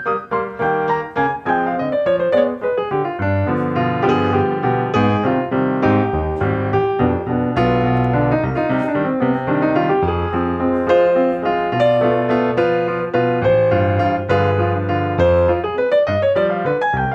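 Background piano music, a melody over a steady bass line.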